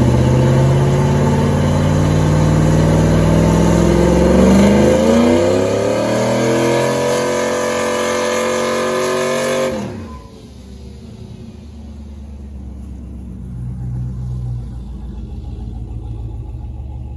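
Chevrolet TrailBlazer SS's 6.0-litre LS2 V8 revving: the engine note climbs steadily for several seconds, then drops off sharply about ten seconds in and carries on running more quietly.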